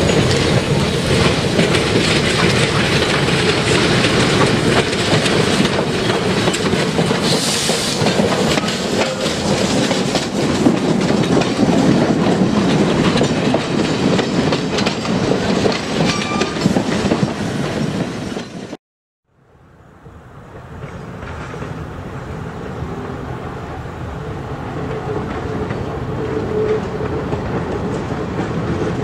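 Leviathan replica 4-4-0 steam locomotive and its passenger coaches rolling slowly past, with wheels clattering over the rail joints in a steady rolling rumble. The sound cuts off abruptly about two-thirds of the way through, then a fainter train sound builds gradually.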